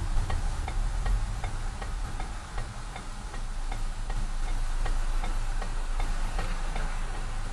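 Car's turn-signal indicator clicking at an even pace, about two to three clicks a second, over the low rumble of the car rolling slowly, heard inside the cabin.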